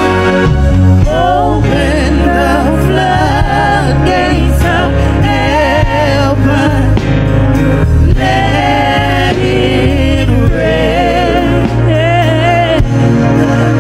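Gospel worship song: women's voices sing a wavering melody over instrumental backing with a steady bass line.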